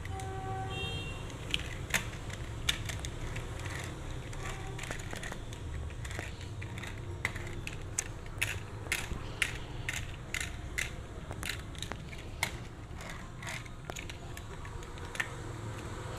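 Hard plastic parts of a toy truck clicking and rattling as they are handled and worked on: a long series of sharp clicks, irregular at first and then about one or two a second, over a steady low hum.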